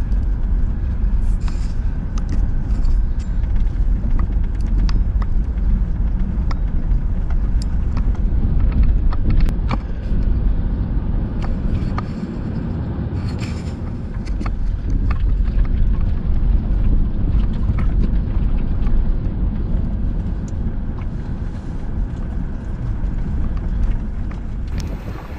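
An off-road vehicle driving over a rough dirt and rock trail: a steady low rumble of engine and tyres, broken by many short clicks and knocks from stones and the body of the vehicle.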